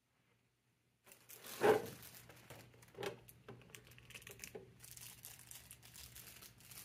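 Clear plastic packaging — a blister tray and plastic bags — crinkling and rustling as hands rummage through it, starting about a second in, with the loudest crackle shortly after and smaller ones following.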